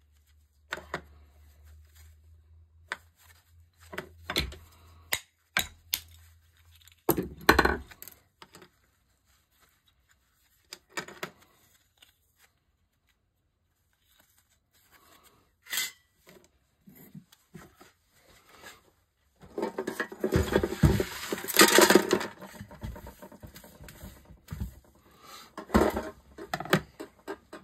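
Gloved hands handling and bending thin sterling silver sheet from weighted candlesticks: scattered clicks, crinkles and light metallic clinks, with a denser stretch of scraping and rattling about two-thirds of the way through.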